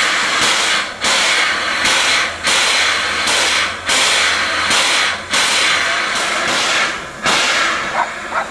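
Narrow-gauge steam tank locomotive U37 002 working slowly: loud hissing steam chuffs in an even rhythm, about one every three-quarters of a second, with steam blowing from the open cylinder drain cocks. A few short squeaks near the end.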